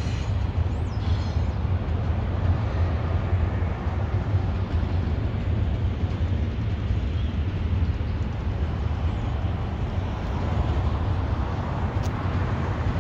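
Intermodal freight train with auto racks rolling past, a steady low rumble of wheels on rail. A brief faint high squeal comes about a second in.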